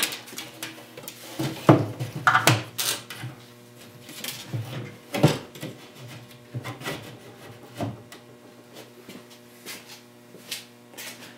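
Pinball machine backglass being fitted into the wooden backbox: irregular knocks, scrapes and rubs of the glass and its frame against the cabinet, busiest in the first half and sparser later.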